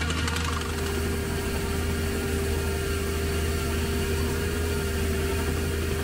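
Tractor engine running steadily under load with a steady whine, while a Lemken power harrow and seed drill work the soil.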